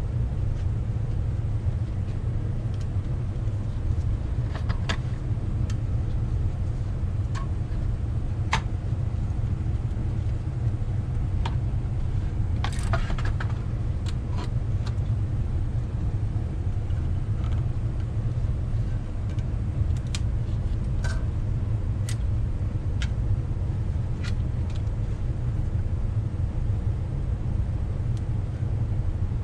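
A steady low rumble runs throughout, with scattered sharp metallic clicks and clinks of hand tools and brake parts, a few in a quick cluster about halfway through.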